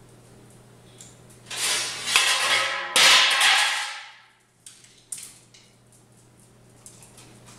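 Two loud clattering crashes, each lasting about a second and ringing on, as a beagle scrambles down off a kitchen counter, followed by a few faint clicks.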